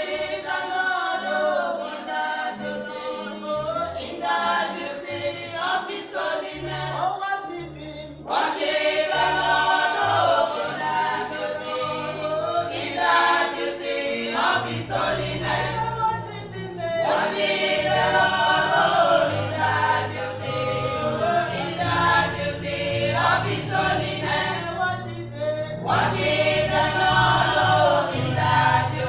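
A choir singing a gospel song, with low bass notes underneath. The singing grows louder about eight seconds in.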